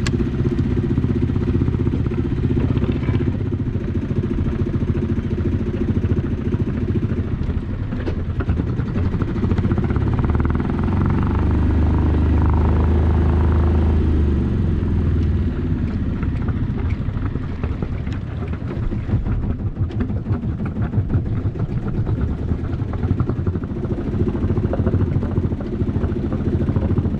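A small sailboat's engine running steadily as the boat motors along, getting louder for a few seconds around the middle.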